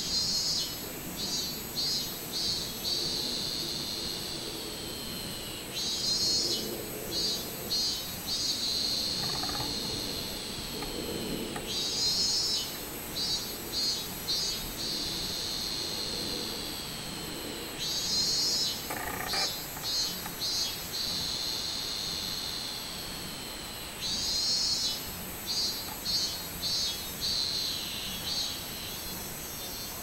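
Minmin-zemi cicada (Hyalessa maculaticollis) singing, phrase after phrase about every six seconds. Each phrase is a string of rapid pulsed notes that trails into a long, slowly falling drone.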